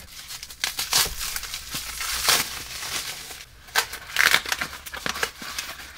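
Plastic packaging crinkling and crackling as a LiPo battery pack is unwrapped by hand. The crackles are irregular and loudest about two seconds and about four seconds in.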